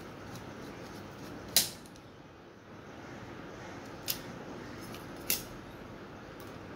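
Sharp clicks of raw broiler chicken being cut on an upright boti blade: three clean snaps, the loudest about a second and a half in, over a steady low hiss.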